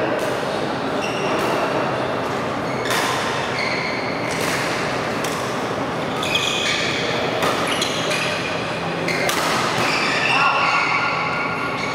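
Badminton play ringing around a large sports hall: sharp racket-on-shuttlecock hits from the courts, mixed with short high squeaks from players' shoes on the court mats.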